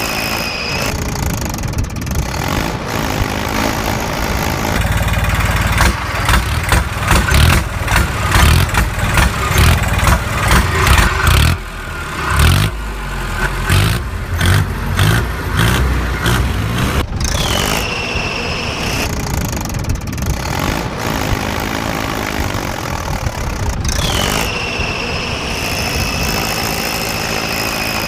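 Tractor diesel engine sound, running steadily, then chugging hard in heavy pulses for several seconds in the middle as if under load. A high whine comes in twice in the later part, each time dropping in pitch as it starts.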